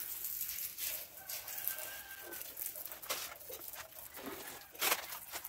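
Hissing spray from a nozzle blowing out a soaped engine bay, coming in uneven bursts, with a sharp louder burst near the end.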